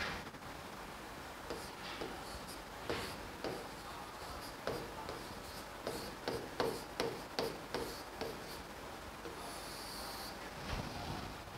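Chalk scratching and tapping on a blackboard as a word is written by hand: a run of short strokes, busiest about six to eight seconds in.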